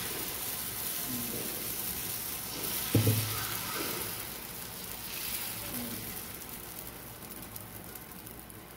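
Whole-wheat and oats uthappam batter sizzling on a hot, oiled tawa as a ladle spreads it in a circle. The sizzle fades gradually, with a single dull knock about three seconds in.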